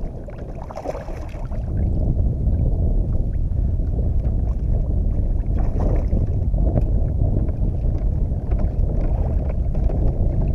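Wind buffeting the microphone, louder from about a second and a half in, with a hooked rainbow trout splashing at the surface beside the kayak around the middle.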